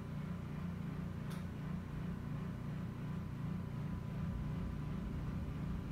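Steady low machine hum with a regular pulsing wobble, and a faint, brief high swish about a second in.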